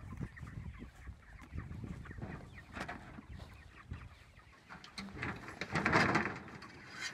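Chickens clucking in a pasture shelter, with rustling and clicking from handling gear in the grass. About five seconds in comes a louder scraping rustle lasting a second or so as the metal shelter dolly is picked up.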